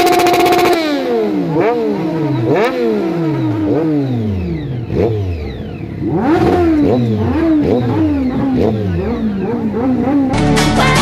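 Sport motorcycle engine free-revved at standstill through a flame-spitting exhaust. It holds a high rev for the first second, then is blipped about ten times, each rev climbing quickly and dying away slowly. Electronic music cuts in near the end.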